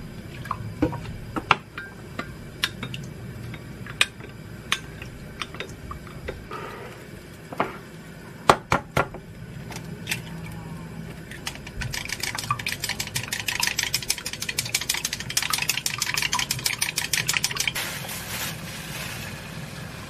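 A wooden spoon stirring sauce and clinking now and then against a glass measuring cup, then an egg cracked with two sharp taps. From about twelve seconds in comes a rapid, steady clicking as the egg is beaten in a glass cup.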